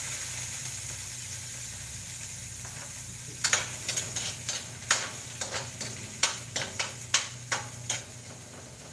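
Food sizzling in hot oil in a metal wok, a steady frying hiss. From about three and a half seconds in, a metal spatula stirs and scrapes against the wok in quick, irregular clacks.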